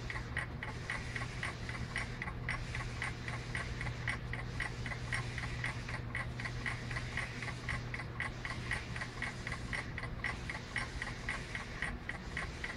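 SO2 titration analyzer sounding a rapid, even train of short high ticking beeps, several a second: its endpoint signal as the sulphur dioxide in the wine sample is titrated. A low steady hum sits underneath and fades out about nine seconds in.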